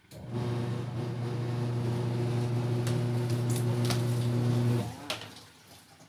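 Twin-tub washing machine's electric motor humming steadily for about four and a half seconds, then cutting off suddenly, with a few light clicks.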